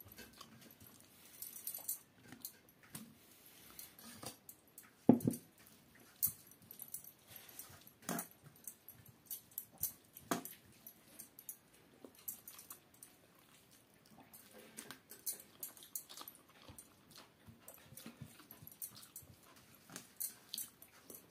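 Close-up mouth sounds of a person eating rice by hand: wet open-mouthed chewing and lip-smacking as a string of short irregular clicks. A single louder knock comes about five seconds in.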